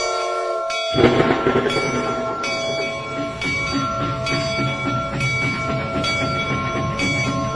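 Steam locomotive running, with a sudden loud burst about a second in, followed by a steady rhythmic beat from its wheels and running gear.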